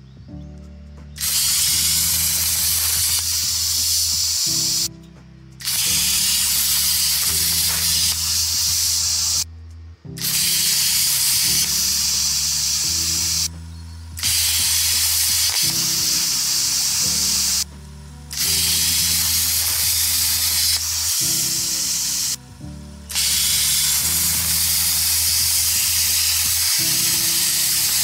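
Plasma cutter (Susemse 50 A pilot-arc unit with P80 torch) cutting sheet steel: a loud steady hiss from the arc and air jet. It starts about a second in and breaks off briefly every four to five seconds as the torch switches off between cuts and fires again. Background music with a bass line plays underneath.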